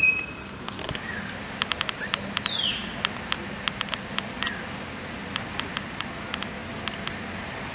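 A few short, falling bird chirps over a run of sharp, irregular clicks. The clicks come thickest in the first half and thin out after that.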